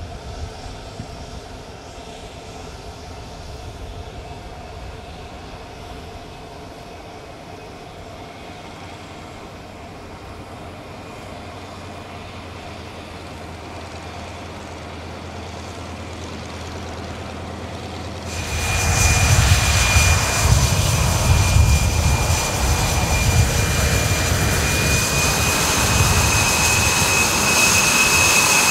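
Jet fighter engine noise from an HAL Tejas: a fainter steady hum for most of the first two-thirds, then, about two-thirds through, a sudden jump to loud jet noise with a steady high-pitched whine that holds to the end.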